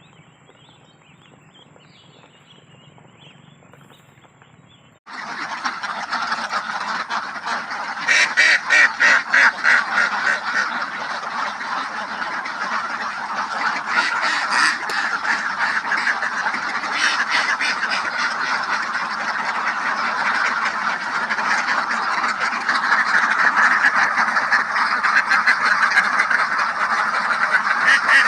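A large flock of domestic ducks near point of lay, quacking together in a continuous loud din. It starts abruptly about five seconds in, after a faint start, with bursts of rapid repeated quacks.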